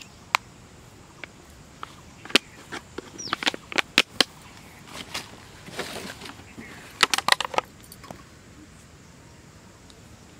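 Sharp clicks and crackles of a woven plastic sack and a plastic bottle being handled, with a short rustle of the sack being pulled near the middle and clusters of clicks a little later. A single short falling bird chirp about three seconds in.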